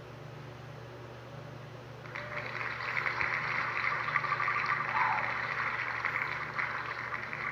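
Online spinning-wheel ticking sound effect: rapid clicks start about two seconds in and slow into separate ticks near the end as the wheel winds down, over a low steady hum.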